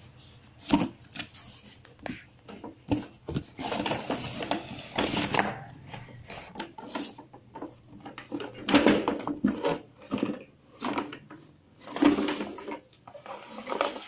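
Cardboard box and packaging being handled and pulled apart: irregular rubbing, scraping and sliding noises with a few sharp knocks.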